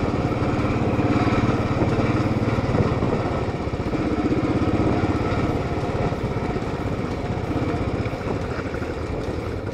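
Royal Enfield Classic 500's single-cylinder engine running steadily under the rider, the motorcycle on the move along a dirt track.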